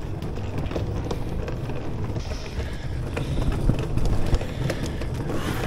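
Footsteps and camera handling on a tiled underground railway platform, a run of irregular short clicks over a steady low rumble of station ambience.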